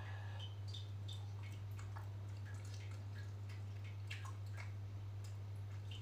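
Close-up wet chewing and lip-smacking of a mouthful of fish meatballs and rice, short clicks and squelches scattered all through, over a steady low hum.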